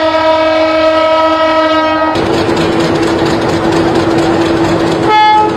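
Diesel locomotive horn held in a long steady blast. About two seconds in the sound changes abruptly to a lower steady horn tone over running-train noise. Near the end comes a short, louder, higher-pitched horn blast.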